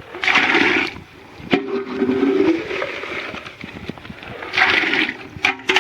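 Water pouring and splashing into a container in three bursts, the second with a low hollow tone under it.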